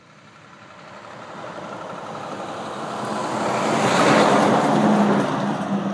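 A motor vehicle approaching and passing close by, its tyre and engine noise swelling steadily to a peak about four seconds in and then easing off.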